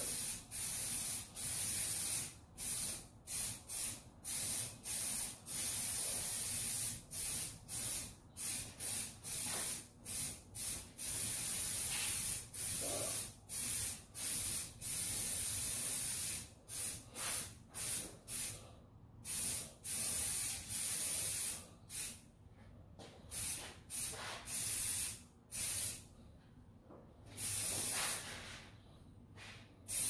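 Aerosol spray paint can being sprayed in dozens of short hissing bursts, a few held for a second or more, with short pauses between them.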